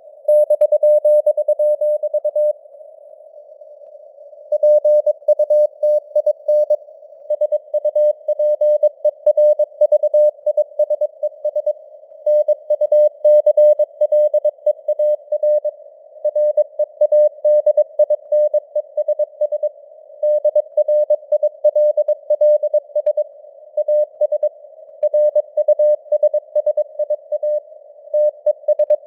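Morse code (CW) sent at 22 words per minute as a single steady mid-pitched tone, keyed on and off in dots and dashes over a faint hiss of simulated radio noise. The keying breaks off for about two seconds a few seconds in, then runs on.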